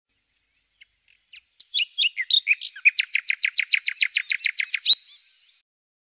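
A songbird singing: a few scattered chirps, then a fast, even trill of about nine notes a second that stops about five seconds in.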